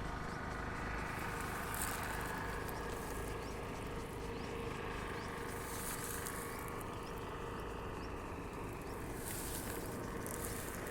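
Outdoor ambience: a steady low rumble with faint high hissing that swells up a few times.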